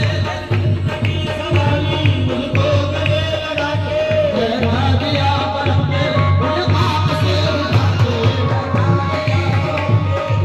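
Background music: a song with a steady drum beat and a singing voice.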